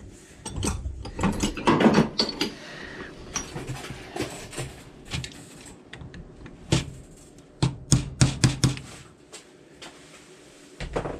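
A tyre being worked onto a Honda Motocompo wheel rim by hand and with tools: rubbing and scraping of rubber on the rim, with irregular sharp knocks and clicks. The loudest stretch is about two seconds in, and there is a quick run of knocks near eight seconds.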